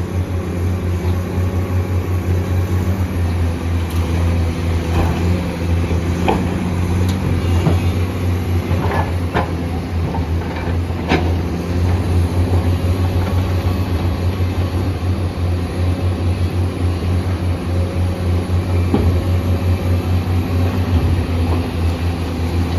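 Excavator's diesel engine running steadily with a low, pulsing rumble. A few sharp knocks come between about four and eleven seconds in.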